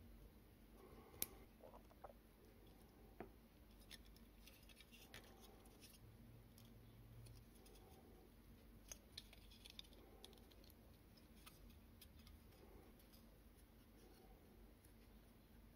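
Faint, sparse clicks and scrapes of a small metal tool and fingers working the sheet-metal chassis of a tin toy car, prying at its tabs; the sharpest click comes about a second in.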